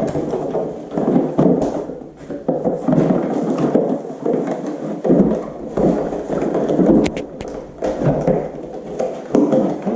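Cardboard box being handled and pulled at, giving irregular scraping and rubbing, with a quick run of sharp clicks about seven seconds in.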